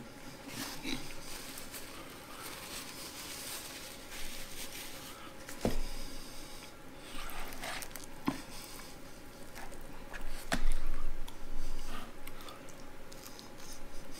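Fried chicken being pulled apart by hand and eaten: crackling of the fried crust, chewing and mouth sounds, with a few sharp snaps along the way, the loudest a bit past the middle.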